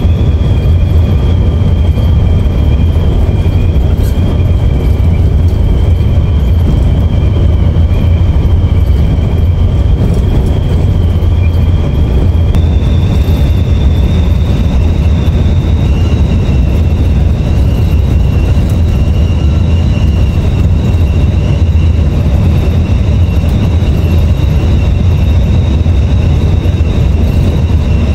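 Coach bus running at highway speed, heard from inside the cab: a loud, steady low rumble of engine and road, with two thin high whines that jump up in pitch about halfway through.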